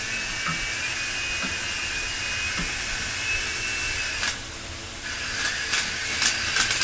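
Toy remote-control helicopter's small electric motor and rotors whining steadily. The whine drops away about four seconds in, then picks up again, with several sharp clicks near the end.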